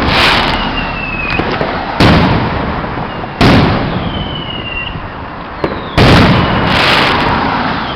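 Consumer aerial fireworks bursting in quick succession: five loud bangs over the eight seconds, each trailing off in a long rumble, with a small crack just before the fourth. Faint high whistles, falling slightly in pitch, sound between the bangs.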